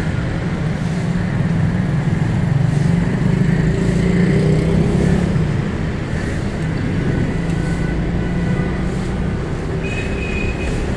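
Steady engine rumble of street traffic, with a thin high tone joining about ten seconds in.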